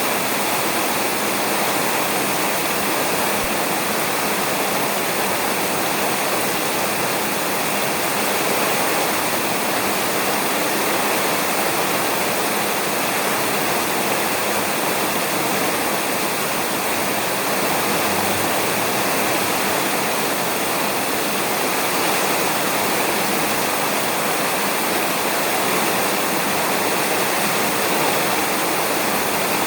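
Steady rain falling on a roof, an even, unbroken hiss of drops.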